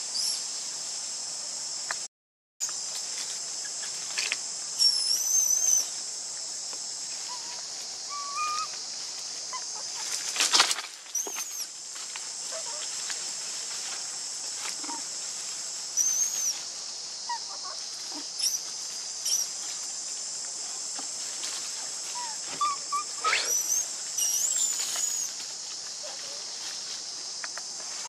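Steady high-pitched drone of insects, with short high chirps that rise and fall, heard several times over it, and one sharp click about ten seconds in.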